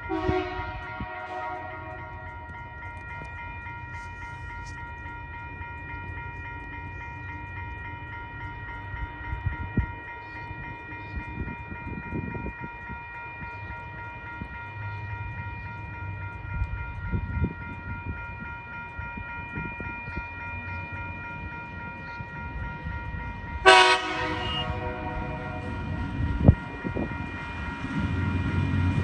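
A TasRail diesel locomotive's horn sounds twice as the train approaches the level crossing: once at the start and again about 24 seconds in. A steady ringing runs throughout, typical of the crossing's warning bell, and the low rumble of the locomotive grows louder near the end.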